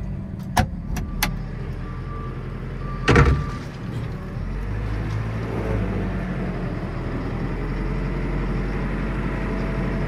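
JCB telehandler's diesel engine running steadily as its bucket tips muck into a trailer, with a few sharp clicks in the first second or so and a louder clunk about three seconds in. The engine hum grows a little stronger from about five seconds in.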